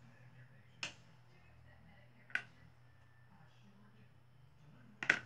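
Three sharp, short clicks from sewing work at a table, about a second and a half apart, the last a quick double, over a low steady hum.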